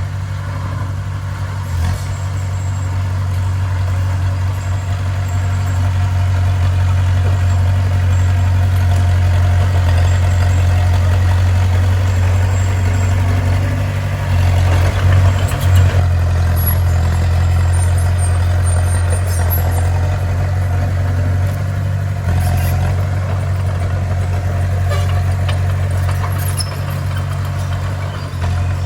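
Bulldozer's diesel engine running with a steady low drone, briefly louder about halfway through.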